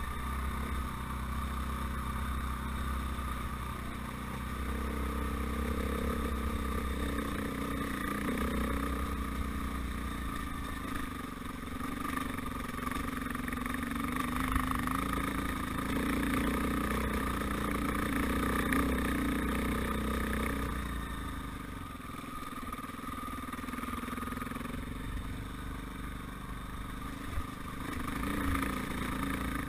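Dirt bike engine running as the bike rides a gravel track, the note swelling and falling with the throttle, loudest in the middle and easing off for the last third.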